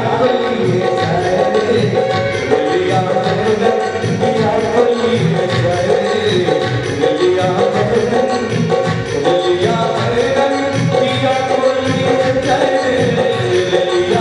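Live Maithili folk song accompaniment in an instrumental passage: a hand drum beating a steady rhythm under a held melody line.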